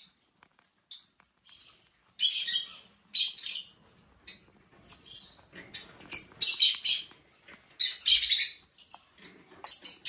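Parrot chicks begging while the parent feeds them food regurgitated from her crop: repeated bursts of high, squeaky cheeping with short pauses between them.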